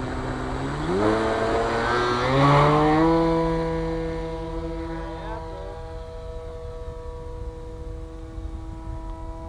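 Radio-controlled model plane's brushless electric motor and propeller spooling up. The whine rises in pitch over about two seconds, then holds a steady pitch while it slowly grows fainter as the plane moves away.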